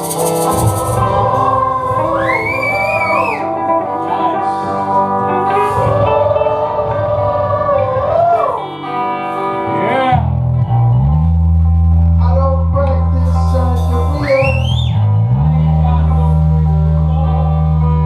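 Live blues jam: guitar and bass playing, with a lead line that bends sharply upward in pitch twice. From about halfway through, the bass holds long, loud low notes.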